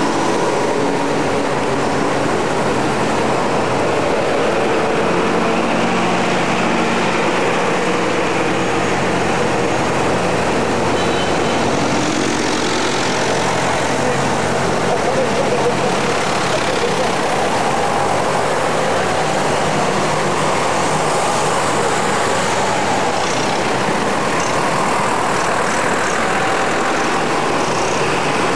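Diesel tractor engines running as tractors drive past one after another, mixed with passing car traffic, giving a steady engine hum.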